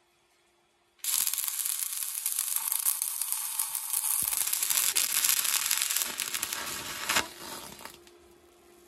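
Stick arc welding on a steel frame: the arc strikes about a second in and crackles steadily for about six seconds, then breaks off and dies away.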